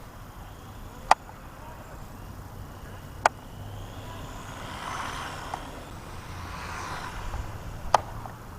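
Small electric RC buggy whirring as it drives, its motor and tyres swelling louder in the second half with a faint rise and fall in pitch. Three sharp clicks stand out, about a second in, about three seconds in and near the end.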